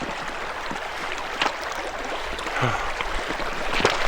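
Steady rush of running water from a river or stream, with a few short knocks and splashes on top.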